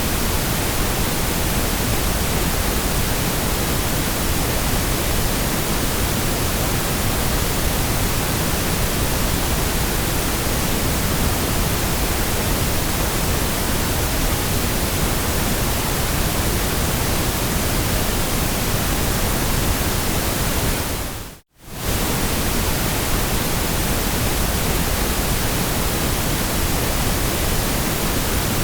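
Steady white noise, an even hiss with no pattern in it. About 21 seconds in it fades out to a moment of silence and straight back in, the seam where a repeating noise loop restarts.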